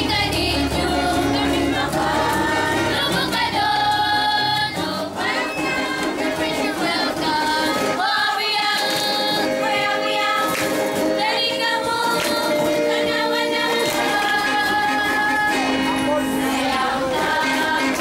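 A group of girls singing a song together in long held notes, accompanied by stringed instruments.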